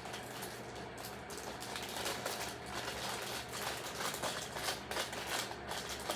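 Quick, irregular light clicks and crinkles from hands handling a plastic packet of kinetic sand.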